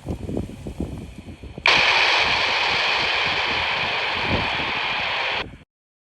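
Wind buffeting the microphone, then a handheld amateur radio's static hiss cuts in suddenly about two seconds in. The hiss runs loud and steady for about four seconds, then cuts off abruptly.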